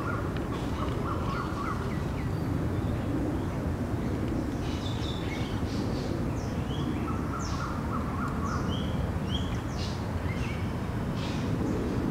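Several wild birds calling in the background: short high chirps and down-slurred notes scattered throughout, and a brief rapid trill near the start and again around the middle, over a steady low rumble.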